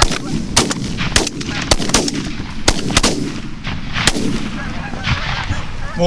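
Shotguns of several hunters firing a rapid, uneven volley of about ten shots over the first four seconds, at Canada geese coming into the decoys.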